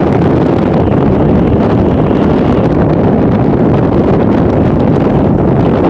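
Strong wind buffeting the microphone on the open deck of a ferry under way: loud, steady wind noise that covers everything else.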